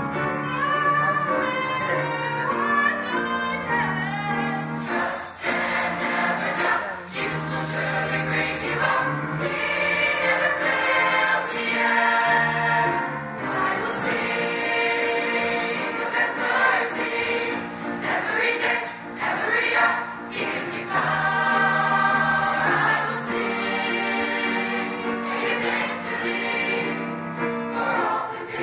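Mixed high school chamber choir singing a gospel song in full harmony, with piano accompaniment.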